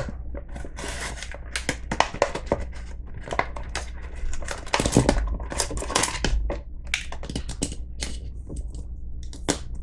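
Clear plastic blister pack being cut open with a knife and pried apart: irregular crackling, crinkling and sharp plastic clicks.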